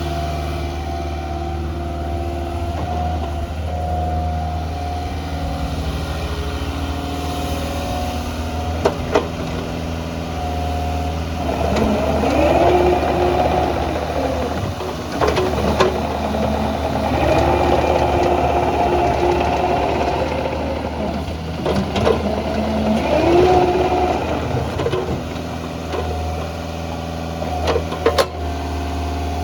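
Bobcat 435 compact excavator's engine running steadily, then working harder for about the middle half, with a rising and falling whine, before settling back to a steady run near the end. A few sharp clanks come through at intervals.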